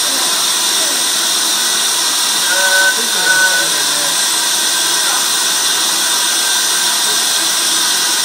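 Steady hiss of compressed air rushing through a hyperbaric recompression chamber's valves and pipework, as the operator works the chamber's gas controls.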